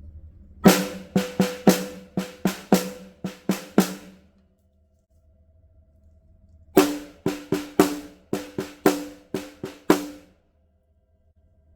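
A drum struck in two short phrases of about ten strokes each, with a gap of about three seconds between them. Each stroke is a sharp crack with a short ringing tone after it.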